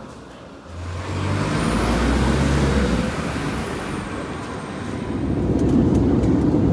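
A vehicle engine pulling away, its low engine note stepping up in pitch, with a high whine that rises and falls. About four seconds in this gives way to the steady roar of an airliner's engines heard inside the cabin.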